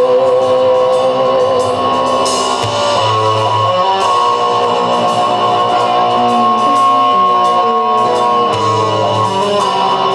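Live rock band playing: electric guitars and drums, with sustained and bending guitar notes.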